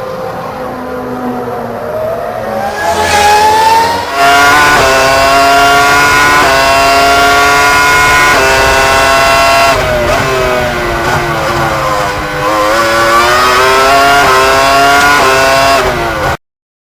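Ferrari Formula 1 car engine at high revs accelerating through the gears, its pitch climbing and dropping back at each upshift. Partway through the revs fall away and then climb again through more shifts. It cuts off abruptly near the end.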